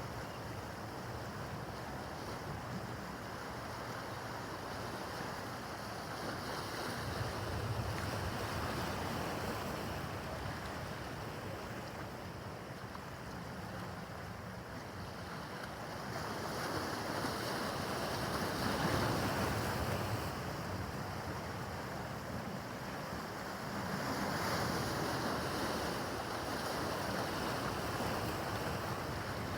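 Rough harbor water washing and splashing, with wind buffeting the microphone and the low hum of a motorboat engine under it; the wash swells louder several times.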